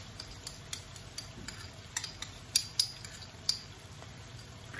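Thick chilli sauce simmering in a nonstick pan, bubbles bursting in irregular sharp pops two or three times a second, thinning out after about three and a half seconds.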